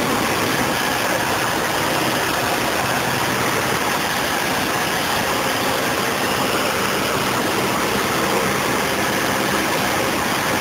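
Cessna 152's four-cylinder Lycoming O-235 engine and propeller running steadily in flight, heard from inside the cockpit.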